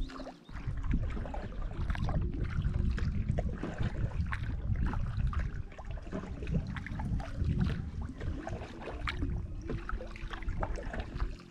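Packraft paddled across still water: paddle blades dip and splash over and over against a fluctuating low rumble that starts about half a second in and eases near the end.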